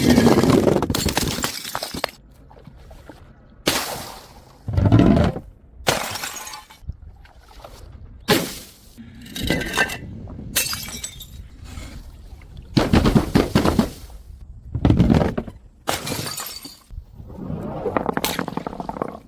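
A run of glass bottles smashing one after another, about ten separate crashes with short gaps between them.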